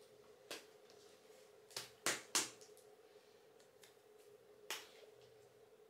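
A few light clicks and rustles of packaging being handled as a new spatula is unwrapped, the sharpest three close together about two seconds in, over a faint steady hum.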